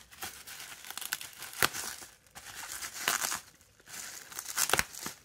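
Plastic bubble wrap crinkling and rustling in irregular bursts as hands handle a wrapped package, with a few sharp clicks.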